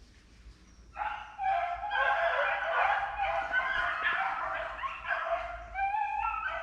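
A pack of rabbit hounds baying together, several voices overlapping, starting about a second in and carrying on; hounds giving voice like this are running a rabbit's scent trail.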